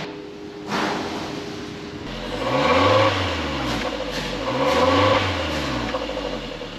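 Suzuki Jimny's 1.5-litre four-cylinder engine, heard through its stock exhaust, is revved twice. Each rev rises and falls over about a second and a half. A short knock comes just before the first rev.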